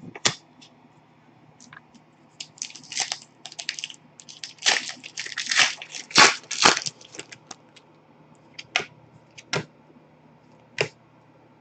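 Plastic wrapper of a Panini Select hockey card pack crinkling and tearing in repeated bursts as it is opened and crumpled. Near the end come a few separate sharp clicks as the cards are handled against the desk.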